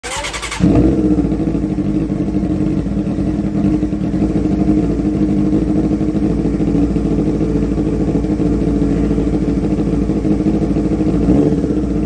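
Honda CBR600 F2's inline-four engine, breathing through a homemade stainless steel exhaust muffler, catches after a brief crank and settles into a steady idle. The revs rise near the end.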